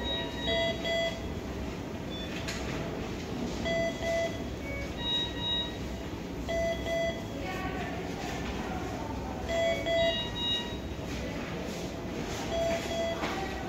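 Hospital medical monitor alarm beeping: short, steady electronic beeps in ones and pairs every few seconds, over a steady room hum.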